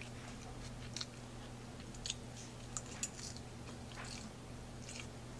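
Close-up chewing of a spinach, chicken, cucumber and red onion salad: short moist crunches and mouth clicks at irregular intervals, over a steady low hum.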